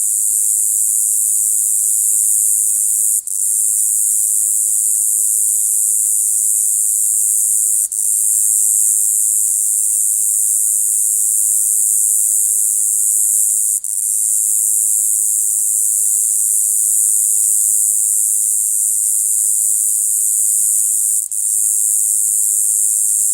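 A single cicada calling with a continuous, very high-pitched ratcheting buzz. The buzz breaks off for a split second four times, then carries straight on.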